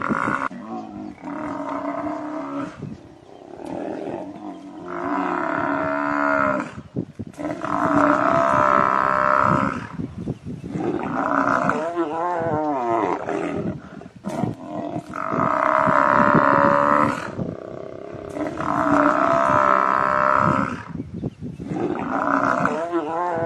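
Buffalo bellowing: a series of long, drawn-out calls with short pauses between, some with a wavering, quavering pitch.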